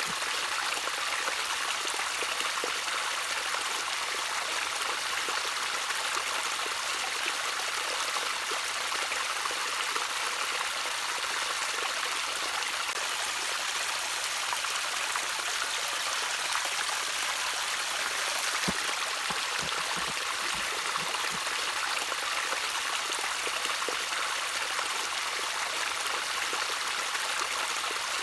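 Gentle trickling water running steadily: an even, bright hiss of flowing water with small splashes mixed in.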